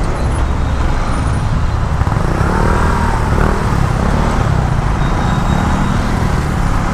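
Kawasaki Rouser NS200 motorcycle's single-cylinder engine running at low speed while the bike filters through slow, dense traffic, with a steady low rumble of surrounding cars and buses.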